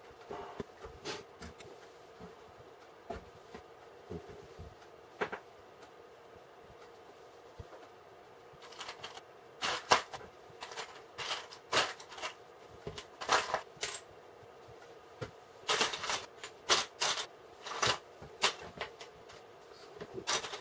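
Small plastic building bricks being handled and snapped together: sharp clicks and short rattles, scattered at first, then coming in dense clusters from about eight seconds in.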